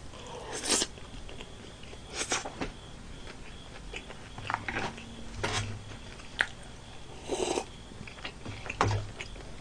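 A person chewing a mouthful of dak galbi (spicy stir-fried chicken), with short chewing noises every second or two, a few louder than the rest.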